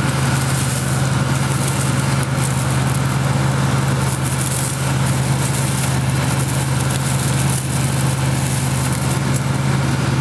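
1979 Ford Bronco's V8 engine idling steadily with the air conditioning switched on.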